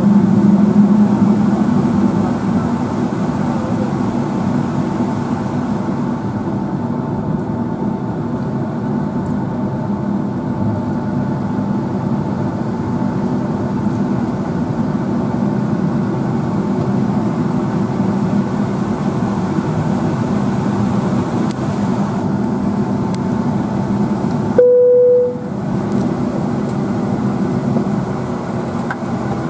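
Steady cabin hum of a Boeing 757-232's Pratt & Whitney PW2037 engines at idle as the airliner taxis slowly toward the gate. About 25 seconds in, a single cabin chime tone sounds briefly.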